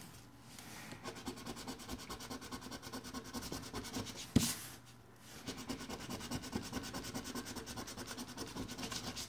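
Scratch-off lottery ticket being scratched, its coating scraped away in quick, even back-and-forth strokes. A single sharp click about four seconds in, then a short pause before the scratching starts again.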